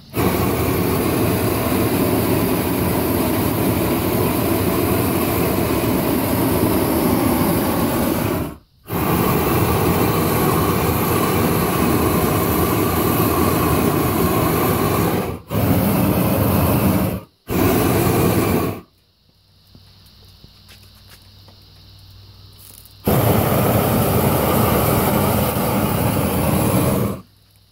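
Long-handled propane blowtorch firing a steady, loud flame onto eggs in a cast-iron skillet. It runs in five long blasts, cut off briefly three times and then for a few seconds before the last blast.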